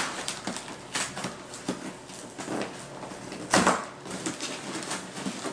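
Fingers picking and pulling at staples and packing tape on a cardboard shipping box: a run of small scratches and clicks, with one louder, longer scrape about three and a half seconds in.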